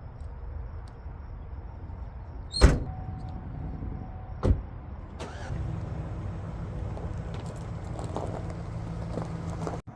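A low rumble broken by two sharp knocks about two seconds apart, then a steady low motor hum that sets in about halfway through.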